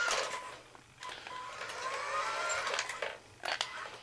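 Small electric drive motor and gears of a remote-control toy Jeep whining, the pitch climbing slowly as it speeds up, with a few plastic clicks near the end. The car is running slowly on a battery that is running low.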